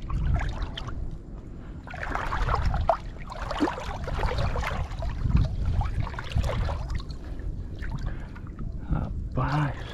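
Shallow water sloshing and splashing close to the microphone in uneven surges, with a low rumble underneath, as the water is worked around the submerged cast net.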